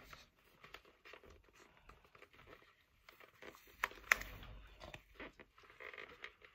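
Faint scratching, rustling and clicking of fingers handling a thick vinyl sticker on a helmet shell, peeling its edge and pressing it down, with two sharper clicks about four seconds in.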